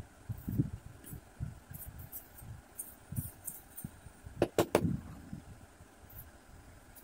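Handling of a folded paper boat against a paper drawing on a table: soft paper rustles and light bumps, with a quick run of three sharp clicks about four and a half seconds in.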